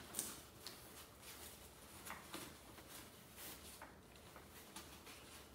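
Faint rustling of a Nuna Pipa car seat's fabric cover and harness strap, with a few soft, scattered clicks as the strap is threaded through a slot in the cover.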